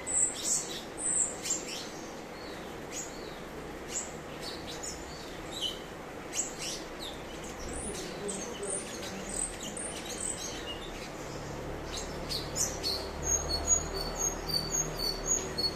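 Cucak cungkok singing: a fast, varied run of sharp chirps and short whistles. Near the end it gives a rhythmic series of paired high notes.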